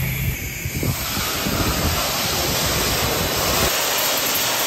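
Sandblaster hose blasting a car body panel: a steady, dense hiss of compressed air and grit that sets in about a second in.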